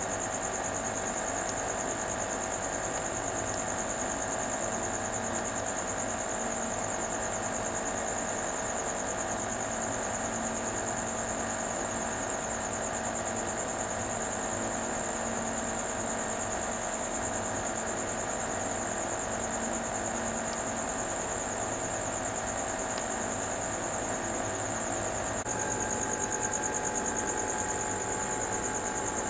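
Aquarium filter and air pump running: a steady mechanical hum with a thin high whine over it. The pitch of the hum shifts slightly and it gets a little louder near the end.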